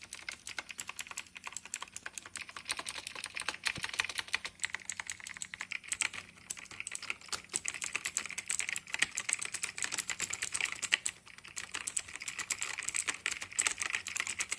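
Rapid typing on a TVS Gold Bharat mechanical keyboard fitted with Long Hua Cherry MX-clone switches: a dense, heavy clatter of key clicks, with a short lull about eleven seconds in.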